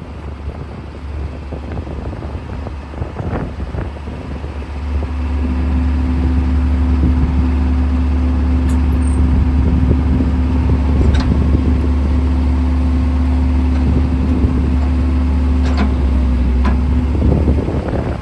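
Case CX135SR excavator's diesel engine running while the machine is operated. About five seconds in, the engine note rises under load and a steady higher hum joins it, holding until it drops back shortly before the end, with a few faint clicks.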